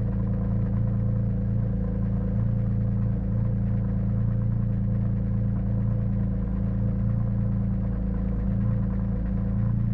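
An engine idling roughly just after a cold start, running steadily low with slight unevenness in its beat; the rough idle is from the engine not yet being warmed up.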